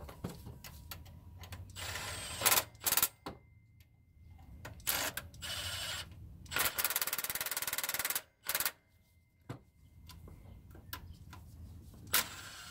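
Impact wrench running in the bolts of a new serpentine belt tensioner in several short bursts of rapid hammering on light torque. The longest burst comes a little past halfway and lasts about a second and a half, with small clicks of tool handling between bursts.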